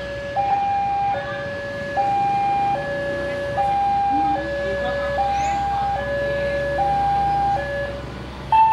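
Railway level-crossing warning alarm, an electronic two-tone signal alternating between a low and a high tone, each held a little under a second, sounding as the crossing barriers come down for an approaching train. Near the end a louder, steady horn-like tone cuts in.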